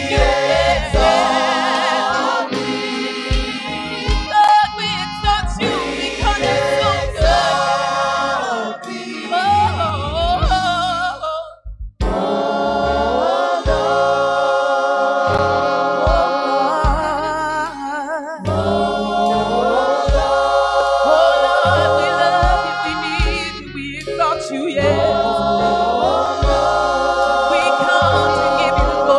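Live gospel song: a lead singer and a backing vocal group singing with band accompaniment. The music drops out for a moment about twelve seconds in, then carries on.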